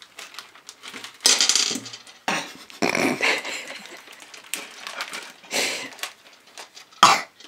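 Small candies tipped from a plastic packet clattering into an empty metal pot in several short bursts, the last one sharp.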